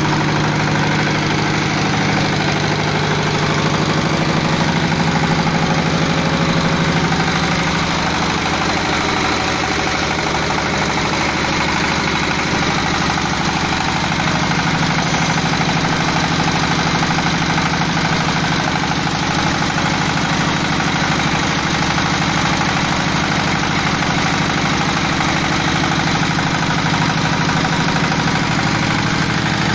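A fish-feed pellet machine running steadily and loudly, a low engine-like hum under a dense mechanical rattle, with no let-up.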